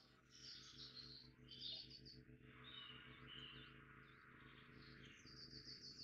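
Songbirds singing faintly: a quick run of repeated high notes, then short rising-and-falling whistled notes, and another quick high trill near the end, over a low steady hum.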